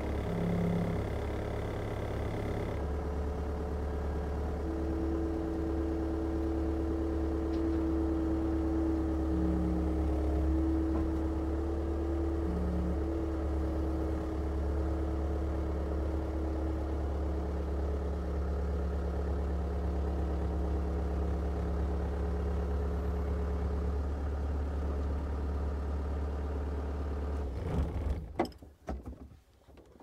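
Engine running steadily at a constant speed, then shutting off about 27 seconds in, followed by a few light knocks and clicks.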